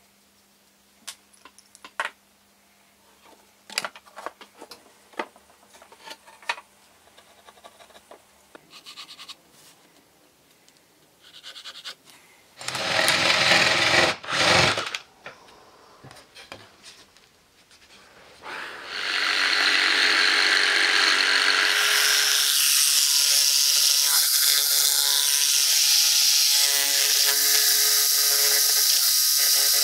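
Scattered light clicks and knocks of tools being handled. About halfway through, a cordless drill bores through a sheet of poplar plywood in two short runs. From about two-thirds through, a jigsaw saws steadily through the plywood.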